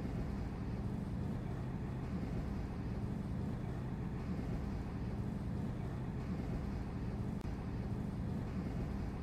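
Steady low rumble of harbour noise as the ocean liner Queen Mary 2 gets under way.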